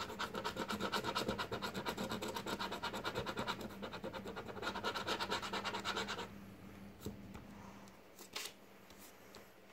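A coin scratching the coating off an instant lottery scratch ticket in rapid, even back-and-forth strokes. The scratching stops about six seconds in, leaving only a few faint taps.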